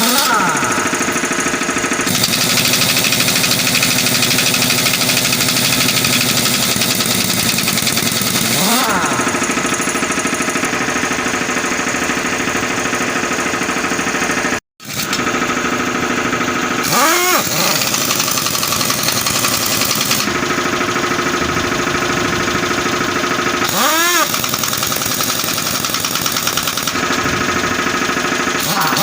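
Tyre-shop machinery working on a truck tyre: steady, rapid mechanical hammering over a running engine, with a whine that rises and falls several times.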